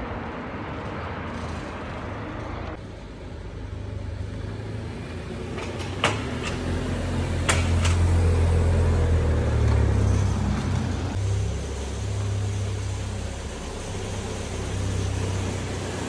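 Volkswagen Jetta engine idling with a steady low hum that swells for a few seconds in the middle. A few sharp clicks come about six and seven and a half seconds in.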